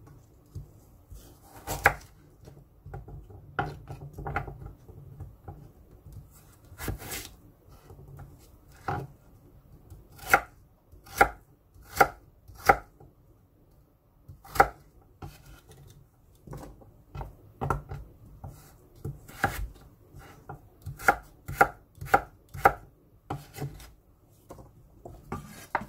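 Chef's knife dicing a carrot on a wooden cutting board: separate chops at uneven spacing, some in runs of about one a second.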